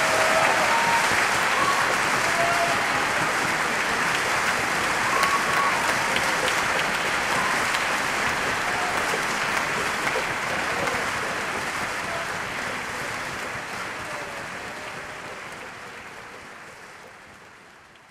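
Concert audience applauding after an orchestral aria, the clapping gradually fading out toward the end.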